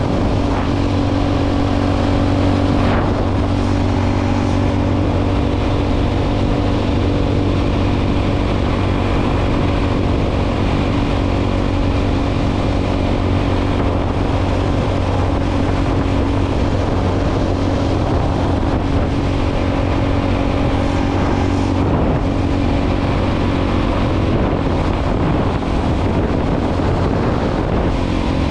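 Motorcycle engine running at a steady cruising speed, one even drone that holds its pitch, with wind noise on the microphone.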